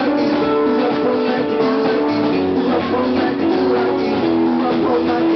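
Live band music led by a guitar, with a drum kit keeping time.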